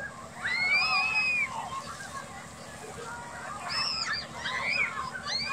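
Children shrieking and yelling in high, rising-and-falling cries as they play under fire-hose water jets, loudest about half a second in and again in the last two seconds. Under them runs a steady hiss of spraying water and a low steady hum.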